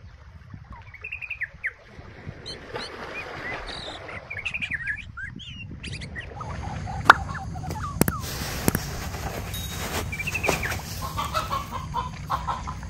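Birds chirping in short calls, with a few sharp clicks and a steady low rumble underneath.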